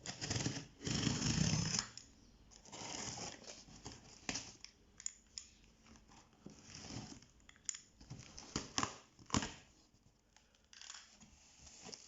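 A cardboard shipping box being opened by hand: packing tape tearing and cardboard and packaging rustling, loudest in the first two seconds, with a few sharp clicks and knocks later on.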